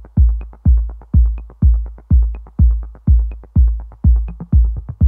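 Background electronic dance music: a deep kick drum beats steadily about twice a second, with a light high tick about once a second.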